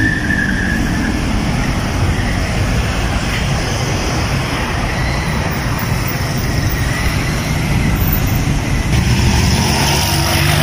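Road traffic at a city intersection: cars and a pickup truck driving past, a steady rush of engine and tyre noise.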